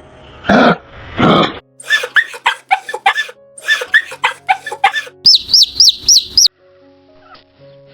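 Animal calls over light background music. Two loud calls come first, then a quick run of short chirping calls. About five seconds in comes a rapid string of about six high, rising whistled chirps.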